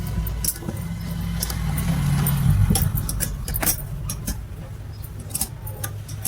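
Metal parts and tools clinking and tapping, many short sharp clicks, over a steady low hum.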